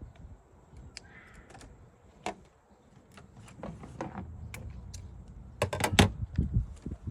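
Scattered light clicks and knocks of things being handled, with a quick run of sharper, louder knocks about six seconds in.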